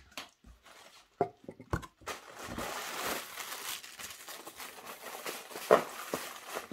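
Packing material crinkling and rustling as hands dig through a cardboard shipping box, starting after a few light knocks and taps; one sharper crackle comes about three-quarters of the way through.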